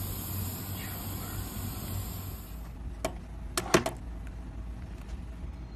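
Steady machine hum with a high whine that cuts off abruptly, then a rivet press setting a rivet in a leather case: one sharp metallic click, then a quick cluster of three, the middle one loudest.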